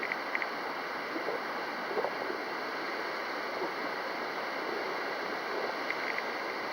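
Strong wind rushing steadily over the microphone.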